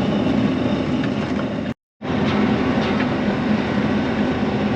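John Deere self-propelled swather running steadily under load while cutting, a continuous engine and machinery drone. The sound drops out completely for about a quarter of a second near two seconds in, then resumes unchanged.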